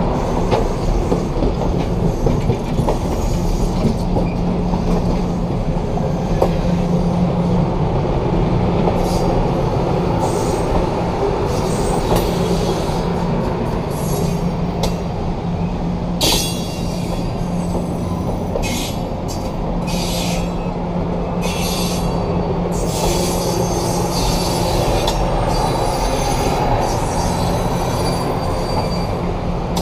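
Stainless-steel passenger cars rolling slowly past at close range, a steady rumble of wheels and running gear. From about halfway on, repeated short bursts of high-pitched wheel squeal break in over the rumble.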